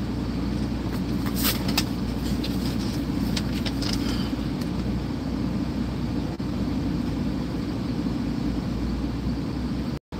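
Semi truck's diesel engine idling steadily, heard from inside the cab as a low, even rumble, with a few light clicks about one and a half and three and a half seconds in.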